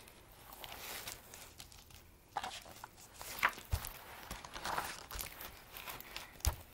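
Hardcover picture book being opened and its cover and pages handled: scattered paper rustles with a few sharper taps and clicks.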